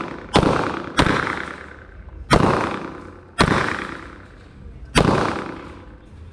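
Five semi-automatic pistol shots fired at uneven intervals, each with a long echoing decay.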